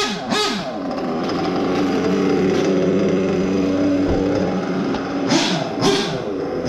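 Nitro RC buggy's small glow engine idling steadily, blipped to a quick high rev and dropping back twice at the start and twice near the end.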